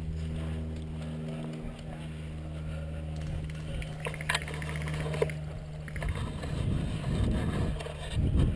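A motor runs with a steady low hum, with a couple of sharp clicks about four seconds in. From about six seconds, louder uneven rumbling noise takes over.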